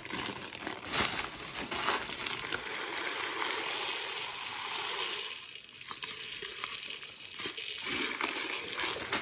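Dry split yellow moong dal being poured into an aluminium pressure cooker onto uncooked rice: a steady grainy rush with a short lull a little past halfway.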